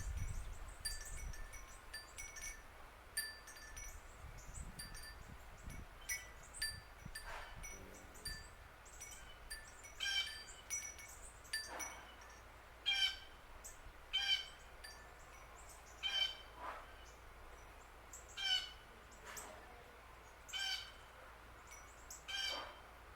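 Wind chimes ringing lightly with short, clear notes. From about halfway through, a bird calls over and over, roughly once a second.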